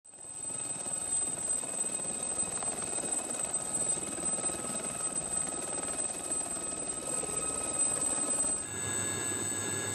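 Aérospatiale Gazelle helicopter hovering low, its rotor noise steady under a high turbine whine. Near the end it gives way to a steady hum with several held tones.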